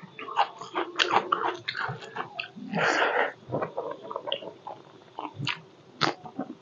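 Close-up chewing of curry and rice eaten by hand, with many short wet clicks and smacks from the mouth and one longer noisy burst about three seconds in.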